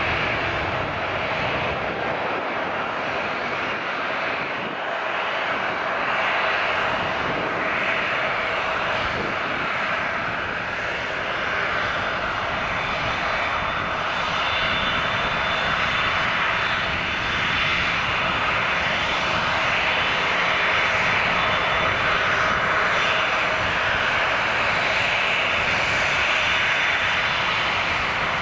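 Airbus A380's four jet engines at takeoff thrust: a steady rushing noise with a faint high whine on top, as the airliner rolls down the runway, lifts off and climbs away, swelling slightly in the second half.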